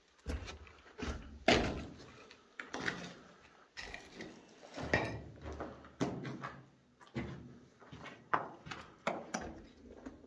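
Footsteps crunching on rubble and grit on a cellar floor, about two steps a second.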